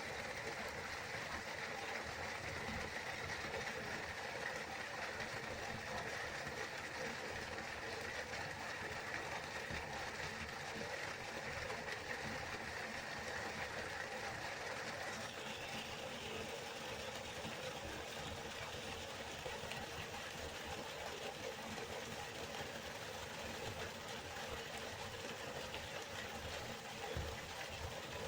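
River water flowing steadily: an even, continuous rushing hiss whose upper tone shifts slightly about halfway through.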